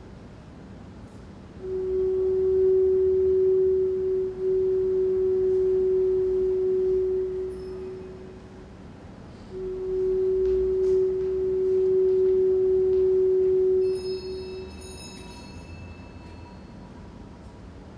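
A steady pure tone, held for about six seconds, breaks off, then sounds again for about five seconds. Near the end a few high ringing tones come in.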